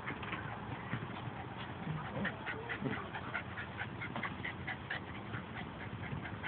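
A dog panting rapidly, about four short breaths a second in a steady rhythm.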